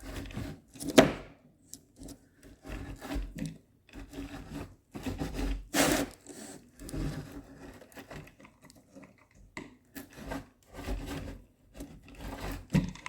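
Spline roller tool worked along a window screen frame, pressing the spline and screen mesh into the frame's groove: irregular rubbing and scraping strokes, with a sharper, louder stroke about a second in and another near six seconds.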